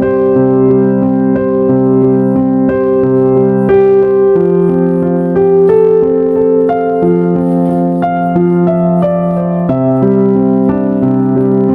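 Background music played on piano or electric piano: a gentle, steady sequence of held chords.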